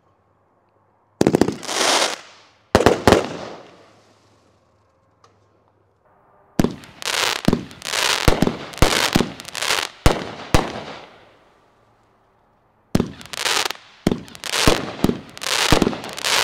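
Dallas firework cake firing: each shot is a sharp bang followed by a fading tail. Two single shots come about a second and a half apart, then after a pause a rapid run of shots, and another rapid run starts near the end.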